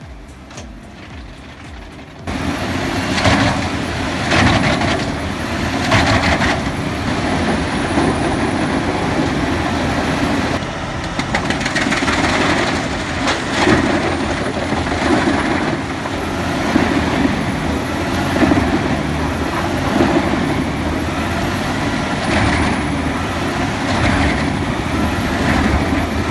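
Albach 2000 large wood chipper running under load as it chips logs: a loud, dense machine noise that surges and dips, starting abruptly about two seconds in.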